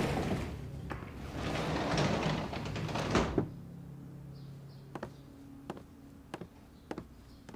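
A wooden sliding door rumbling along its track and knocking shut about three seconds in, followed by slow footsteps on wooden floorboards.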